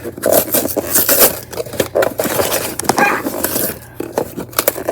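Cardboard Lego set box being pried open at its glued flap: a run of irregular scrapes and clicks of cardboard being worked loose.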